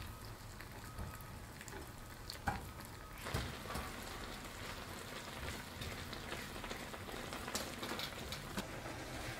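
Ground beef simmering in liquid in a nonstick frying pan, a steady crackling sizzle and bubble, while a silicone spatula stirs it, with a sharp tap about two and a half seconds in.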